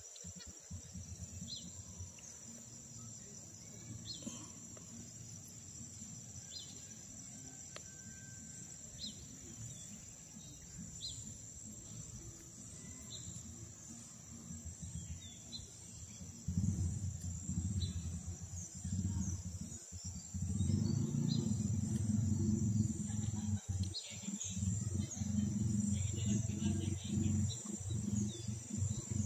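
Steady high-pitched chorus of forest insects, with brief chirps every second or two. A low rumbling noise grows much louder about two-thirds of the way in.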